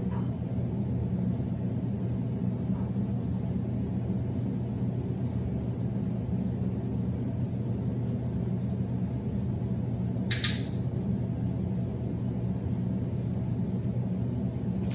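Steady low hum with several fixed pitches, with one short rustling hiss about ten seconds in.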